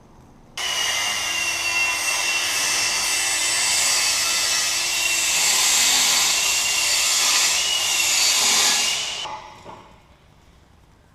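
Angle grinder cutting into a steel exhaust pipe. It starts suddenly and runs at full speed for about nine seconds, with a high whine that wavers under load, then winds down and stops.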